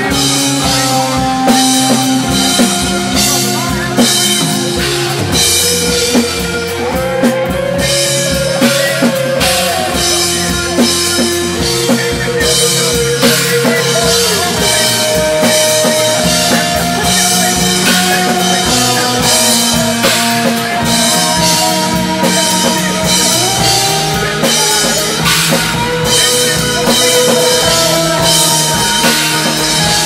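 Live rock band playing loud: a drum kit with frequent cymbal and drum strikes over held, amplified instrument notes that change every second or two.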